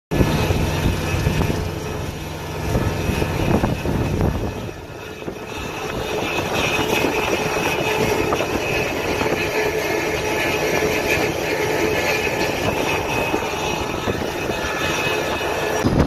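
Steady motor drone with a held whine, heavier and lower in the first few seconds.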